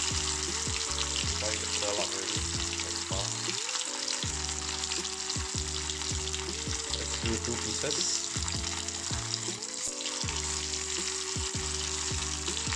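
Marinated barramundi pieces deep-frying in hot oil in a small black wok, a steady sizzle, with background music underneath.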